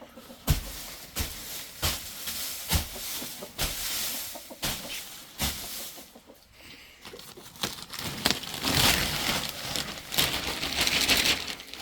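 Wood shavings being shaken out and scattered on a hen-house floor: rustling and swishing, with sharp knocks. The rustling grows denser and louder in the second half.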